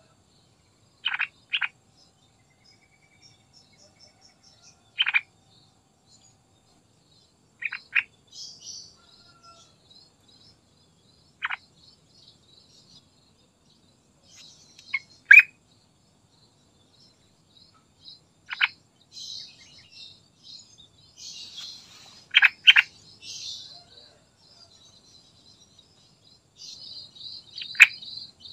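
Yellow-vented bulbul calling: short sharp notes, singly or in quick pairs, every few seconds, with a fainter high twittering that grows busier in the second half.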